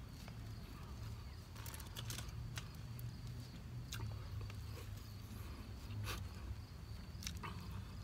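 Close chewing and mouth sounds of someone eating with his fingers: scattered short crisp clicks at irregular intervals over a steady low hum.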